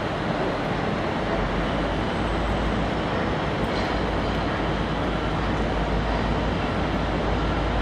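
A V/Line A class diesel-hauled passenger train running on the rails: a steady rolling rumble, with a low engine drone joining about a second in.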